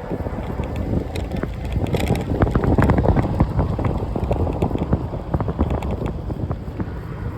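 Wind buffeting the microphone of a rider on the move, a rough low rumble with scattered clicks and rattles, loudest about two to four seconds in.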